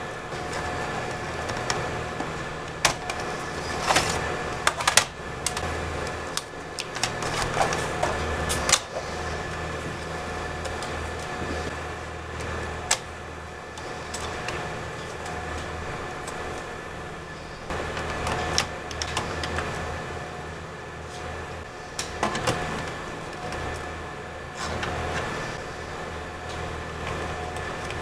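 A hand screwdriver working screws out of a laptop's plastic underside: scattered sharp clicks and taps of the driver, screws and case being handled, coming in a few clusters, over a steady low background hum.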